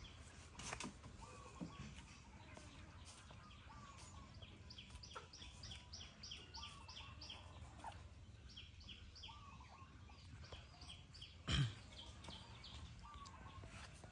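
Small birds chirping faintly, with runs of short, quickly repeated high notes and a few curling calls. A single sharp knock about three-quarters of the way in is the loudest sound.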